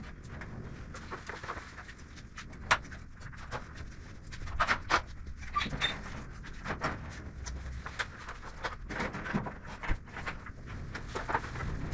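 Irregular clicks, taps and scraping as a metal ceiling panel on a drywall panel lift is shifted and adjusted by hand, with the sharpest knock about three seconds in.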